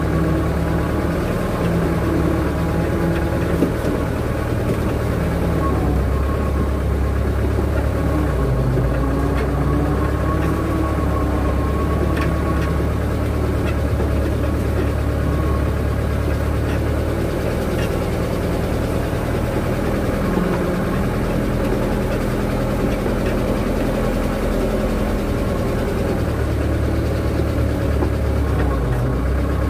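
Engine of a moving vehicle running steadily while driving, a low drone whose pitch dips briefly about nine seconds in and again near the end.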